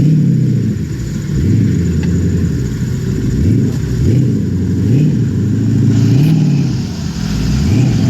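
Loud off-road 4x4 engine revving in repeated blips, its pitch rising and falling about once a second.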